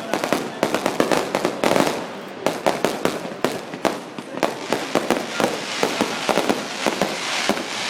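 Fireworks going off in a dense, rapid barrage of sharp bangs and crackles, many per second without a break.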